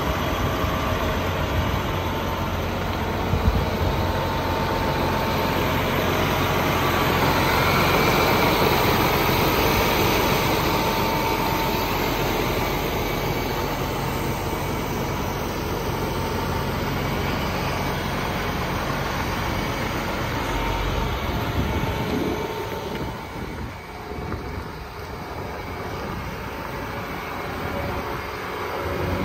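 John Deere 8370R tractor's diesel engine idling steadily, a little quieter for a few seconds near the end.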